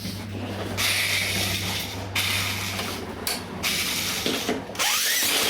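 Small gasoline engine being cranked over by an electric drill on its starter nut, in about four bursts of roughly a second each: a hard start on an engine long unused, with a lot of oil in the combustion chamber.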